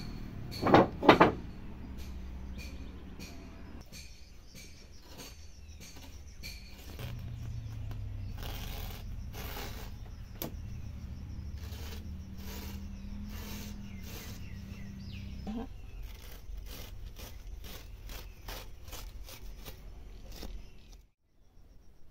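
Cloth and cotton threads being handled and pulled at a wooden hand loom: irregular rustling and light clicks over a low outdoor rumble, with two brief loud knocks about a second in. The sound cuts off abruptly near the end.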